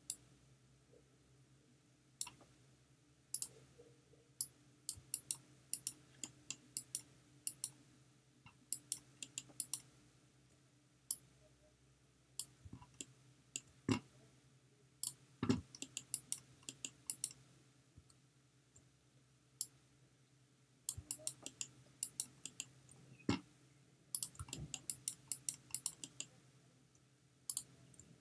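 Faint clicks of a computer mouse and keyboard used at a desk, coming singly and in short quick runs, with silence between them.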